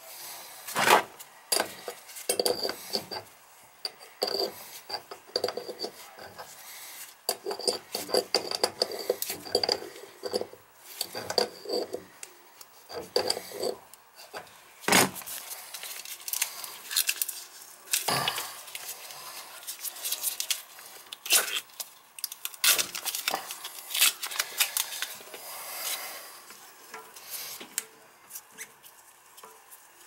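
Irregular clicks, knocks and rubbing from a gloved hand working against a porcelain toilet tank and its braided steel supply line, with a few sharper knocks among them.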